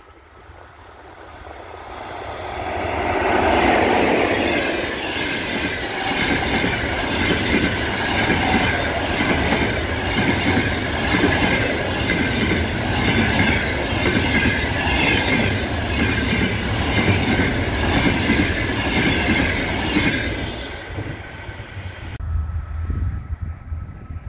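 EP1M electric locomotive hauling a long passenger train past at speed: the noise swells to its loudest as the locomotive goes by about four seconds in, then the coaches' wheels clatter rhythmically on the rails. It fades near the end and cuts off suddenly, leaving a low rumble.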